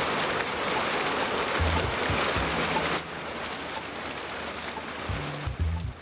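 Bubbler fountain jets splashing into a shallow pool: a steady rush of water, louder for the first three seconds, then a little softer.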